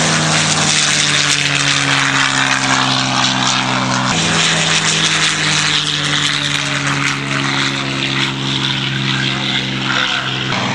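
P-51 Mustang's Merlin V-12 engine running at high power in a low pass, a steady engine tone. About four seconds in, the sound changes abruptly to a light helicopter flying by, running steadily.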